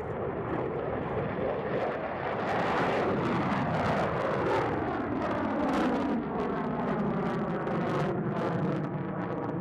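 Lockheed Martin F-22 Raptor's twin turbofan jet engines making a fast low pass and pulling up into a climb. The jet noise has a crackle in it and is loudest a few seconds in, with the pitch sweeping down as the jet passes and climbs away.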